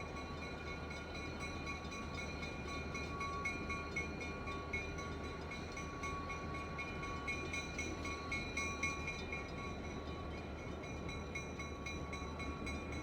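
Train rolling past: a steady rumble of wheels on the rails, with several steady high-pitched tones ringing over it.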